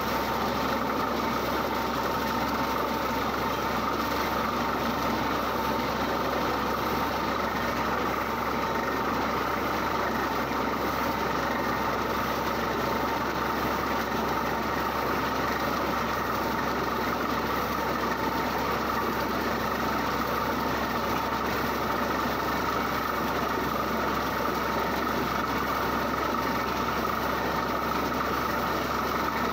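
Borewell drilling rig running steadily while drilling: a constant, unchanging machine drone from the rig's engine and drill.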